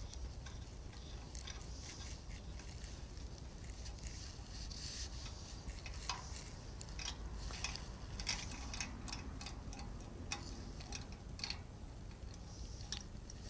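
Hand tap in a T-handle tap wrench cutting 1/4-20 threads through a steel plate: faint, irregular small metallic clicks and ticks as the tap is turned, over a low steady hum.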